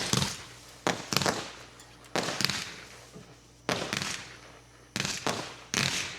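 Fireworks going off: about nine sharp bangs at uneven intervals, some in quick pairs, each one dying away.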